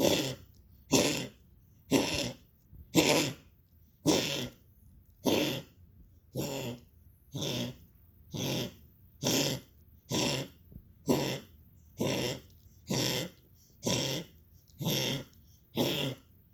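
Dog coughing over and over in a steady rhythm: short, harsh, hacking coughs about one a second.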